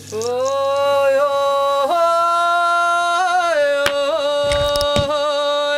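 A single voice singing or chanting long held notes with small wavering ornaments. It steps up in pitch about two seconds in and back down a second and a half later. A sharp click and a couple of low knocks come near the middle.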